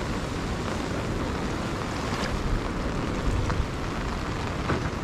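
Steady rush of a flood-swollen river mixed with falling rain, with wind buffeting the microphone as a low rumble.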